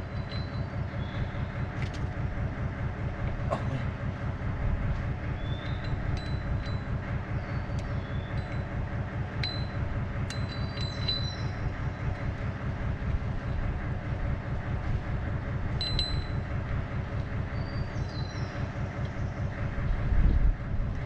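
An engine idling steadily with a fast, even low pulse. Short high chirps and a few sharp clicks sound over it.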